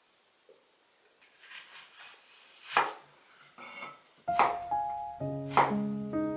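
Chef's knife slicing through a peeled onion and knocking on a wooden cutting board, a few separate strikes with the loudest a little under three seconds in. Gentle piano music comes in about two-thirds of the way through.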